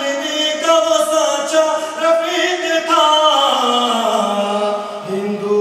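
A man singing an Urdu nazm unaccompanied into a microphone, drawing out long held notes that wind up and down with no words broken off. A little past the middle his voice slides slowly down in pitch, then takes up a new, lower note near the end.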